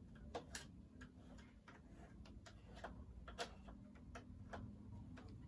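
Faint, irregular light clicks and taps of small plastic toy-kitchen pieces and utensils being handled and set down.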